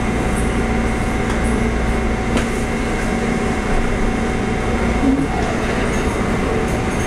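Inside a Taiwan Railway EMU400 electric multiple unit standing still: a steady low rumble with a held electrical hum in two tones.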